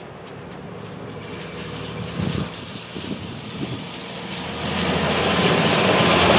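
Vintage diesel railbus approaching and passing close, its underfloor engine drone and wheel-on-rail noise growing steadily louder.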